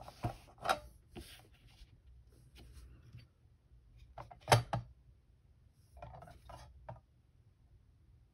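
Handling sounds on a metal kitchen scale. A few light taps and clicks come first as the scale is moved into place. About four and a half seconds in, the loudest knock comes as a 3D-printed plastic actuator is set down on the scale's metal platform, followed by a few softer knocks as it is adjusted.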